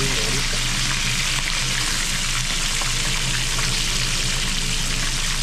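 Small whole mojarra fish frying in hot oil: a steady sizzle, with a low steady hum underneath.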